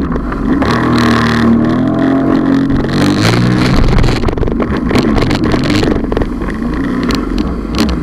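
Sea-Doo Spark personal watercraft's three-cylinder Rotax engine running at speed, its pitch rising and falling with the throttle. Water splashing and a run of sharp thumps in the second half as the hull hits the chop.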